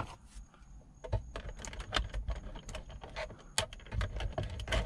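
Light, irregular clicks and taps of fingers pushing a dash cam cable into the gap between the headliner and the windshield, plastic trim and cable ticking as they are handled.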